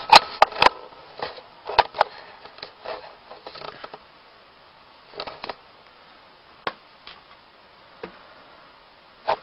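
Handling noise from a handheld camera being adjusted: scattered light clicks and taps, several in the first two seconds and a few single ones later, over a faint steady hiss.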